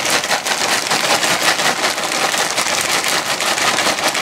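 Omelette eggs sizzling and crackling in a hot frying pan, a dense, steady hiss full of fine crackles.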